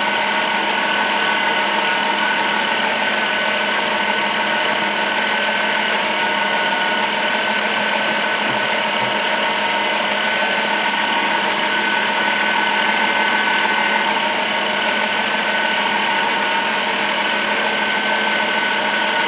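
2007 Dodge Grand Caravan's V6 engine idling steadily, with a constant high tone over the running, while the newly fitted alternator charges the battery at about 14 volts.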